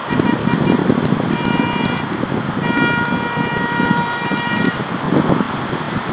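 Car horn honking over a steady rumble of city traffic: a short honk about a second and a half in, then a longer held honk of about two seconds.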